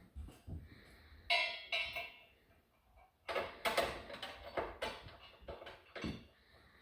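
Metal bolts, nuts and washers clinking against the hitch and frame as they are fitted by hand: one ringing metallic clink about a second in, then a run of irregular clicks and knocks a few seconds later.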